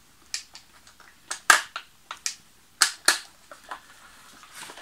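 A string of irregular sharp plastic clicks and knocks as a nunchuck-type battery is pushed into the battery compartment around the gearbox of a polymer-bodied airsoft M249 replica.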